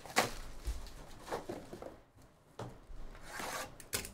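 Trading card packs being handled on a table: a few sharp taps and knocks as they are picked up and set down, with a brief rustle about three and a half seconds in.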